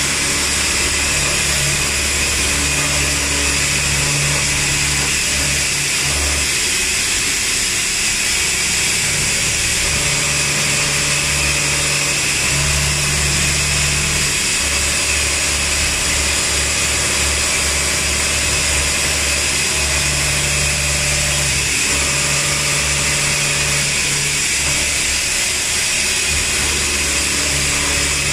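CNC vertical machining centre milling a melamine mug mould: a steady high-pitched spindle whine and cutting noise. A low hum under it switches on and off every few seconds.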